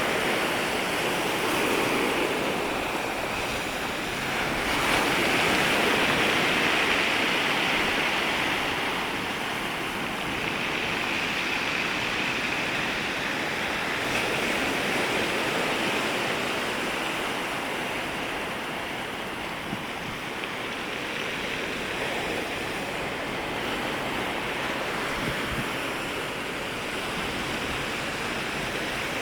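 Sea waves breaking and washing over each other at the shoreline in a continuous rush, surging louder about five seconds in and then easing into gentler rises and falls.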